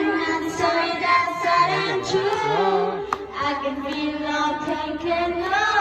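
A woman singing a song live, with sustained, sliding notes and a single sharp click about three seconds in.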